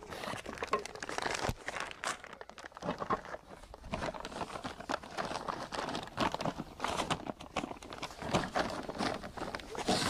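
Red plastic sheet crinkling and rustling as hands spread it out and press it flat over the top of a bamboo-slatted beehive.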